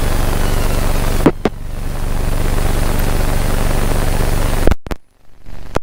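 Steady hiss and low hum in the cockpit of a Van's RV-7A at engine shutdown, the mixture pulled to cutoff. Two sharp clicks come about a second and a half in, and the sound cuts off abruptly near the end.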